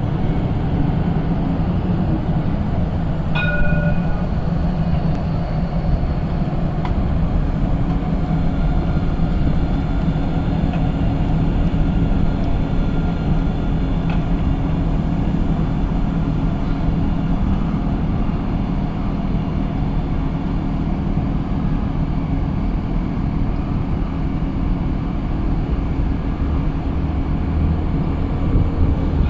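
Steady rumble of a tram running along a city street, mixed with road traffic. A brief high ringing tone sounds about three and a half seconds in.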